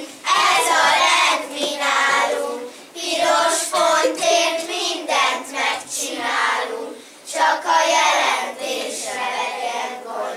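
A group of children singing together in phrases of a second or two, with short breaks between them.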